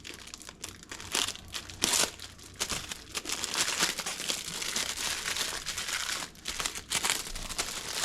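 Plastic shipping bag crinkling and rustling as it is handled and opened, with a few sharper crackles along the way.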